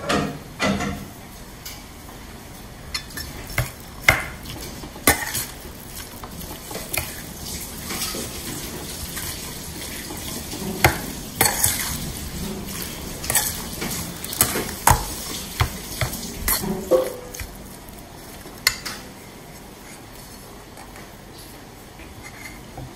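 Metal spoon stirring a thick mashed tofu-and-potato mixture in a stainless steel bowl: soft scraping with irregular clinks and knocks against the bowl, which stop a few seconds before the end.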